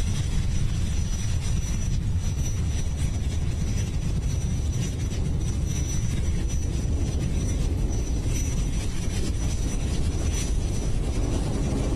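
Falcon 9 first stage's nine Merlin engines in flight: a steady, deep rumble with a faint crackle.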